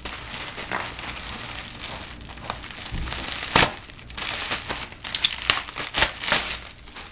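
Plastic bubble wrap crinkling and crackling as it is handled and pulled open, with one sharp crackle about three and a half seconds in and denser, louder crackles near the end.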